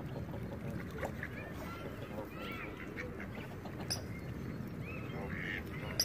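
Canada geese honking and ducks calling on a pond, scattered short calls throughout, over a steady low background rumble.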